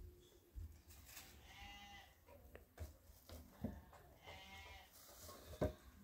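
Livestock bleating faintly: two drawn-out bleats about three seconds apart, with a few short knocks in between, the sharpest just before the end.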